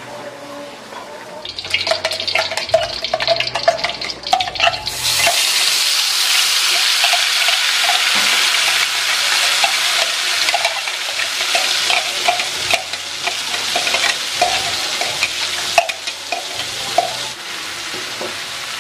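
Ground chili spice paste frying in hot oil in a metal wok. A loud sizzle sets in about five seconds in and keeps going, with a spoon scraping and tapping against the wok; before it there are only scattered clicks and light crackling.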